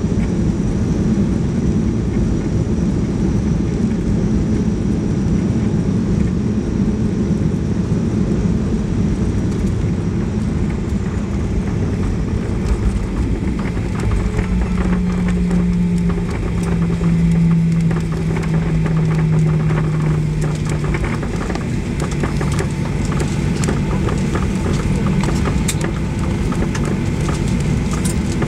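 Boeing 737-800 heard from the cabin on its landing rollout: a steady rumble of the engines and the wheels rolling on the runway. From about halfway through, a low hum steps down in pitch, and in the later part small knocks come through from the wheels.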